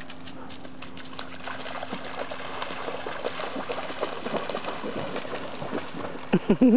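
Great Dane running and splashing through shallow lake water, the splashing building up from about a second in. Near the end, a few short, loud voiced calls cut in.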